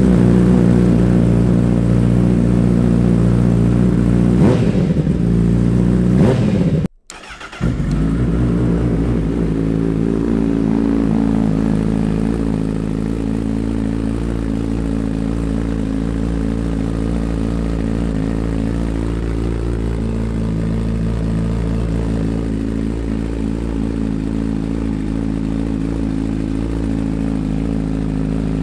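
Honda CBR1000RR SP's inline-four running through a Yoshimura slip-on exhaust, echoing in a basement garage. It idles, is revved up and down a couple of times about four to six seconds in, drops out for a moment near seven seconds, then settles back to a steady idle.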